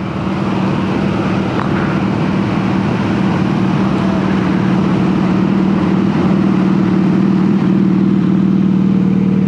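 Motorcycle engine running at a steady, unchanging speed close by. It swells over the first second, then holds level.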